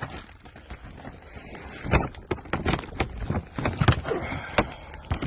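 Handling noise from firework boxes being moved and set down: irregular knocks and clicks with rustling in between, the sharpest knocks about two seconds in and near the end.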